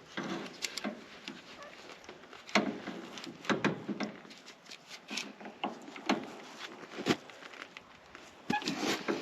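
Irregular metal clinks and knocks of a hand ratchet and socket being worked against the engine, trying to seat on the oil sensor switch.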